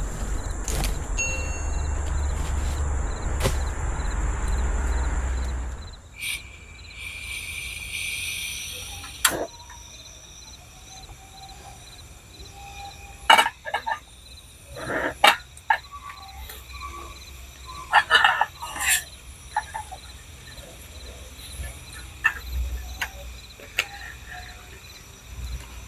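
A loud steady rushing noise with a low rumble that stops about six seconds in. Then night insects chirr steadily while a cookpot and a portable butane gas stove are handled, making several sharp clicks and knocks.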